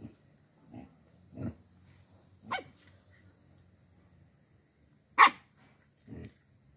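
A dog barks once, loud and sharp, about five seconds in, with a few fainter short animal sounds before and after it.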